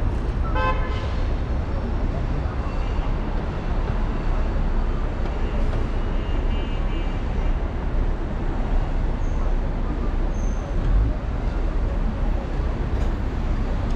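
Steady city traffic noise from cars and buses, heard from a moving car, with a short pitched beep about half a second in.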